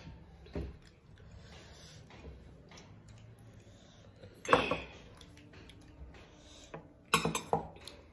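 Small stainless steel bowls clinking and clattering against metal dinner plates as curry is tipped out of them: one loud clatter about halfway through and a quick run of several near the end.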